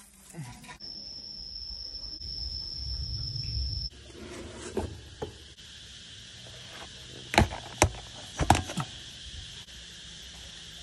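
Water pouring into a large pot of chopped cow lung, rice and dried fish, growing louder until it breaks off; then, against a steady high background hum, four sharp clanks of metal cookware, two close pairs about a second apart.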